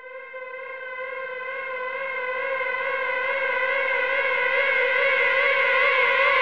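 A single held siren-like tone with overtones, its pitch wavering slightly but not rising or falling, fading in from silence and swelling steadily louder.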